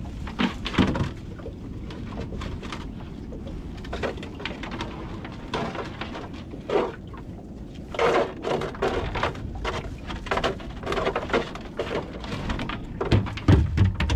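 Water lapping and splashing against the hull of a small fishing boat, with scattered knocks and thuds on board, busier in the second half.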